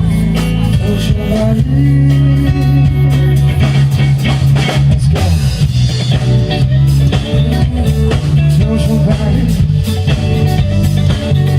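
A live rock band playing a loud instrumental passage, with guitar, bass and a drum kit keeping a steady beat.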